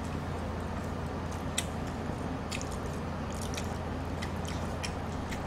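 Close-miked eating of pork-bone soup: mouth sounds of chewing and slurping, with scattered small wet clicks and smacks, over a steady low hum.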